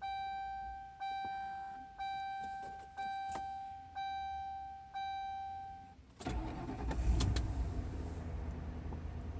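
A Ford Crown Victoria's dashboard warning chime sounds six times, about once a second. Then the V8 engine cranks and catches about six seconds in and settles into a steady cold-start idle.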